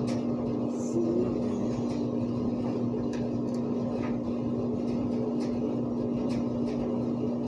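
Kitchen appliance running with a steady electric hum, with a few faint ticks over it.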